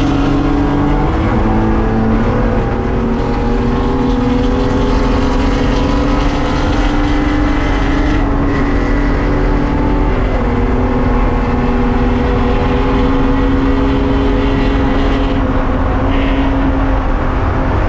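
BMW endurance race car's engine running hard at speed, heard from inside the stripped-out cabin, with road and wind noise beneath it. The engine note drops about a second in and again around ten seconds, then climbs slowly each time.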